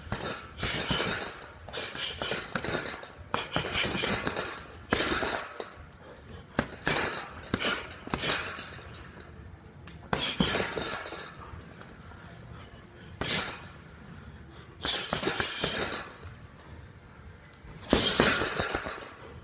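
Punches landing on a hanging Everlast heavy bag in quick flurries of several strikes each, the bag's support chain clinking with every flurry. Short pauses of a second or two separate the flurries.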